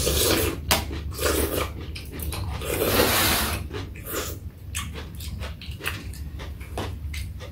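People eating soup: loud slurping from a spoon, three times in the first few seconds, with chewing and short clicks of spoons and chopsticks against metal and china bowls.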